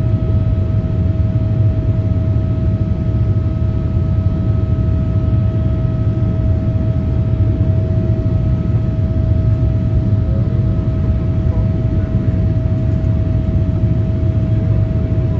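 Inside the cabin of a Boeing 787-9 climbing out after takeoff: the steady roar of the jet engines at climb power and the airflow, with a steady whine held at one pitch.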